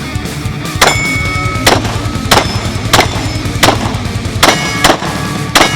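Glock 22 pistol firing .40 S&W in a string of about nine shots, roughly one every half to one second with a quick double near the end, and steel targets ringing with a clang after several hits.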